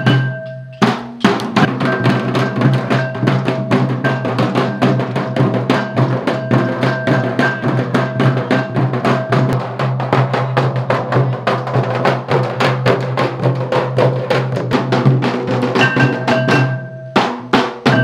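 Several large conical drums with laced hide heads beaten with sticks in a fast, dense rhythm, with a short break just under a second in.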